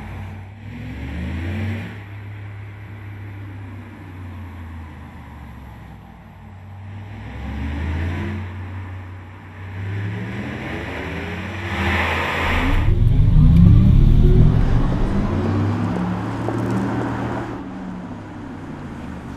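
Audi R8 e-tron's synthesized electric-car sound signature, generated from the car's signals and played through a loudspeaker: a layered humming tone that rises and falls in pitch several times, swelling to its loudest about twelve to fifteen seconds in.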